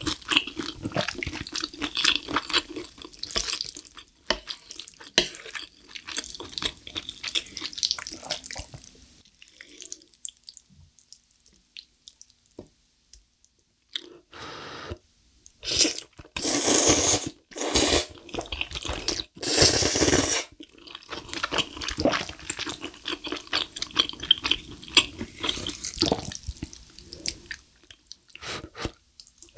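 Close-miked wet chewing of saucy black bean instant noodles, with a quiet spell in the first half, then a run of loud slurps of noodles past the middle, then more chewing.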